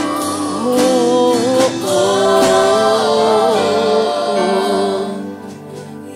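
Live gospel worship music: a man sings slow, held notes that glide between pitches, over keyboard accompaniment. The music eases down in level near the end.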